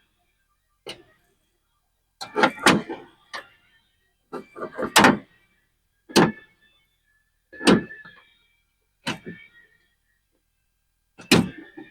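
Sharp metal clicks and taps, some with a short metallic ring, as an angle pick pries at a small retainer clip on the lever of a 1969 Chevelle door latch assembly, trying to pop it loose. The clicking comes in about seven separate bursts with silence between.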